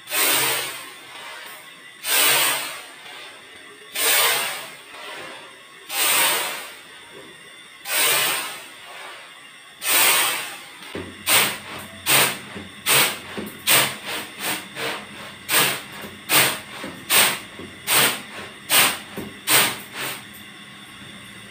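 Raw rice being winnowed in a plastic winnowing tray: the grains swish across the tray with each toss. At first there are long sweeps about every two seconds, then from about halfway quicker, shorter shakes, about three every two seconds.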